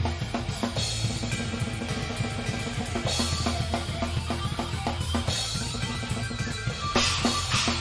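A live band playing, with the drum kit up front: a steady, fast beat of bass drum and snare over a sustained bass line. Cymbal crashes come about a second in, about three seconds in, and again near the end.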